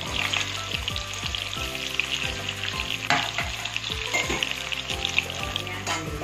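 Marinated chicken pieces sizzling and crackling as they fry in oil in a pan, with a spatula stirring them now and then.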